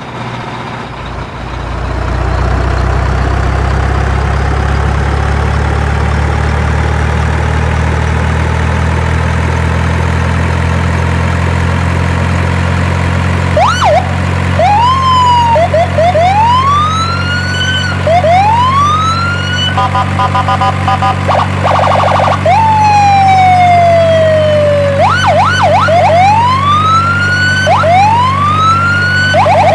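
Electronic siren of a toy emergency vehicle: a steady low engine drone, joined about halfway through by repeated rising wails that switch patterns, briefly stuttering, then one long falling tone, then fast yelps near the end.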